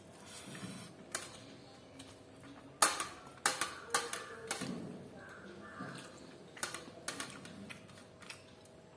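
Close-up eating sounds from dry-fried chicken: a run of sharp clicks and crunches, loudest about three seconds in.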